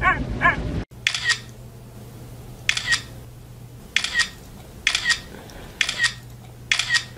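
Camera shutter firing six times, each a quick double click, at roughly one-second intervals.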